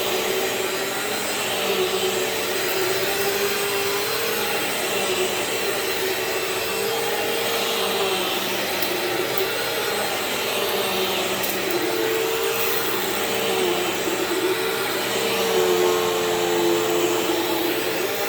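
Bissell CleanView Swivel Pet bagless upright vacuum running on carpet: a steady motor hum and whine whose pitch dips a little now and then as it is pushed back and forth.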